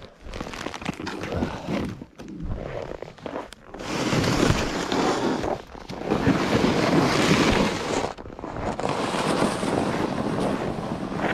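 Two loaded plastic ice-fishing sleds dragged over packed snow, a rough scraping hiss with crunching footsteps. It gets louder about four seconds in, with a few short pauses.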